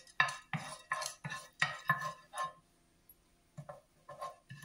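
Spatula stirring urad dal and chana dal roasting in a little oil in a nonstick frying pan, about two scraping strokes a second. After a pause the strokes come again near the end, fainter and spaced out.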